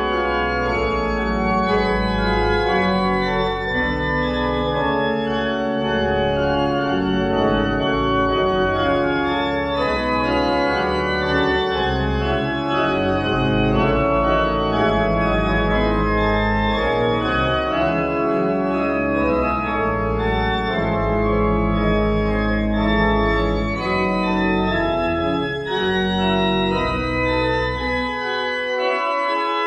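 Organ music: slow, held chords over deep bass notes, moving from chord to chord every second or two.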